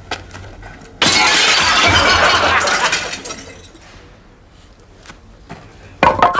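Glass shattering: a sudden loud crash about a second in that rings on for about two seconds before fading. A second sudden loud noise comes just before the end.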